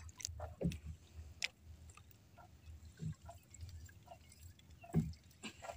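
Quiet water around a small outrigger boat: faint lapping and small ticks, with three soft low thumps spread a couple of seconds apart.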